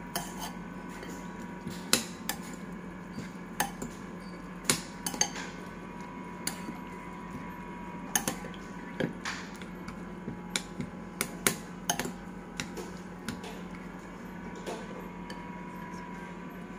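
A metal fork and spoon clinking and scraping against a ceramic bowl of instant noodles as they are mixed and scooped up, in irregular sharp clinks.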